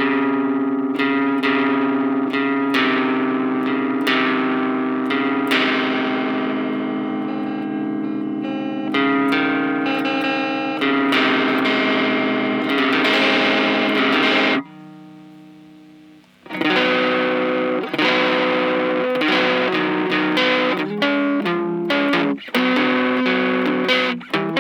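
Electric guitar with effects and some distortion, strumming sustained chords, with a short break about two-thirds of the way through before the strumming resumes.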